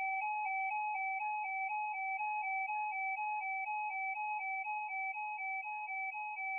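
Emergency Alert System alert tone: an electronic two-pitch warble stepping evenly between a higher and a lower note about twice a second, signalling that an emergency alert message is about to follow.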